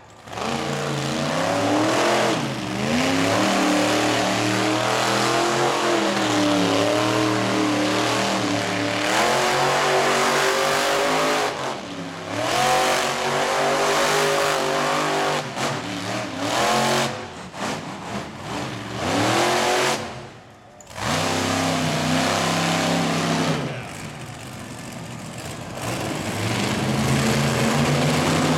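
Monster truck engines revving hard, the pitch rising and falling again and again as Grave Digger spins donuts. The sound drops out briefly a few times, deepest about twenty seconds in.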